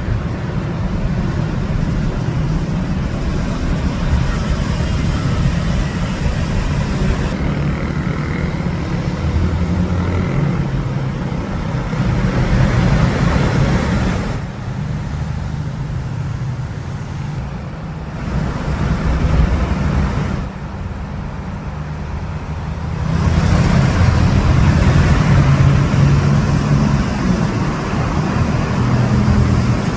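Road vehicle noise in city traffic: a steady low engine and road rumble. It eases off twice in the middle and swells again in the last few seconds.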